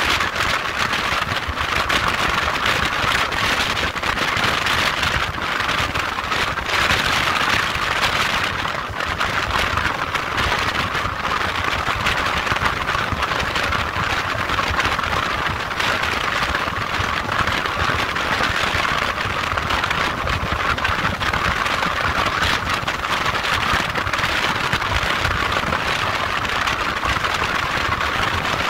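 Motorcycle on the move: steady engine and road noise under an even rushing hiss that holds at the same level throughout.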